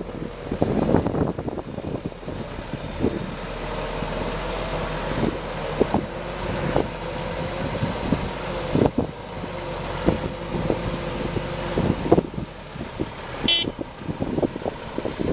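Scania 410 tipper truck running with a steady whine while unloading gravel, with scattered knocks and a brief high squeal near the end. Wind gusts on the microphone.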